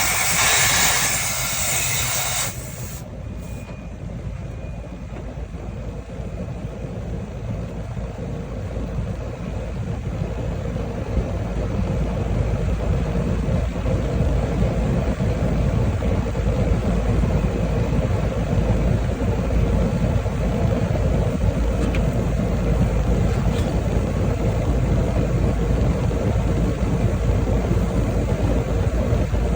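Outdoor AC condenser unit running with a steady low hum from its fan and compressor, getting gradually louder. A loud hiss over it stops suddenly about two and a half seconds in.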